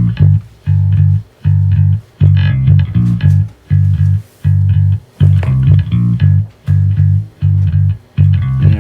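Music: a bass guitar repeats short notes in a steady beat, with guitar playing above it.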